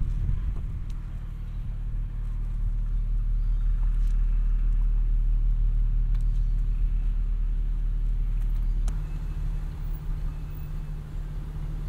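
A motor vehicle's engine running steadily close by, its note shifting and dropping slightly about nine seconds in.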